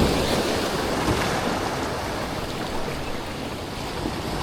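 Steady rush of waves and moving water in the inlet, with wind buffeting the microphone.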